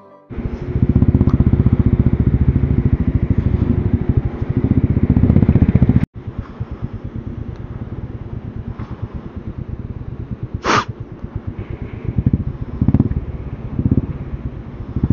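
Motorcycle engine running as it is ridden, loud for the first six seconds, then quieter after a sudden cut. There is a short sharp sound about ten seconds in.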